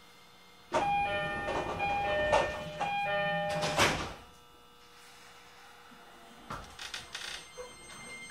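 E231-series commuter train's door chime sounding its repeating tones as the sliding passenger doors close, ending with a thud as the doors meet a little after three seconds in. A few lighter clunks follow near the end.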